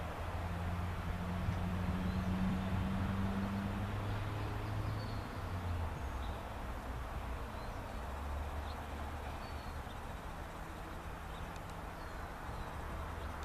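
Outdoor background: a low rumble, louder during the first few seconds, with a few faint, short, high bird chirps.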